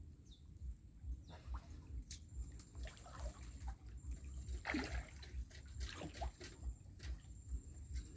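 Faint sloshing and small splashes of shallow water, stirred by someone wading and groping along the bottom by hand and foot. There is a cluster of splashes about five seconds in.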